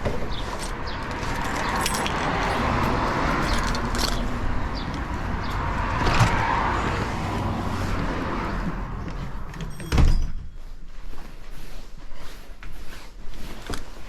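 Steady noisy vehicle rumble that dies down about nine seconds in, then one sharp loud thump about ten seconds in, followed by scattered light clicks and jangles.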